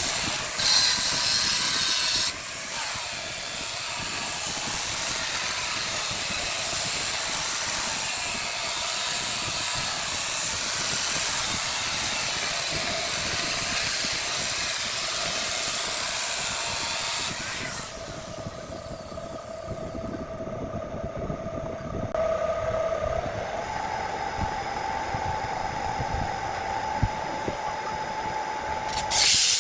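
Wood lathe running with a turning tool cutting the spinning wood, a steady hiss over the lathe's motor hum. After about two-thirds of the way through the cutting hiss drops away, leaving the motor's whine, which steps up in pitch a few seconds later.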